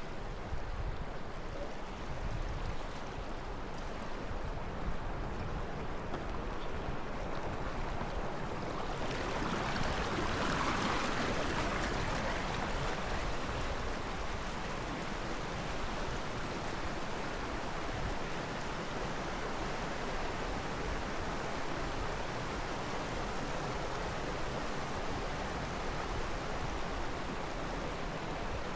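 Steady rushing of flowing river water, swelling louder and brighter about ten seconds in before settling back.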